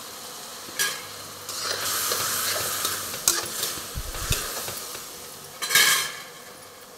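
Metal spatula stirring and scraping green onions and peas in a metal kadhai as they sizzle in a freshly added wet spice mix. Sharp scrapes about a second in and again near the end, the last the loudest.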